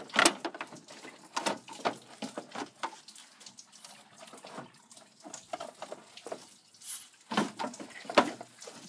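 Old GM radiator, plastic side tanks on an aluminium core, being lifted straight up out of a pickup's radiator support: irregular knocks, scrapes and rattles as it shifts against the surrounding parts, the sharpest just after the start and again near the end.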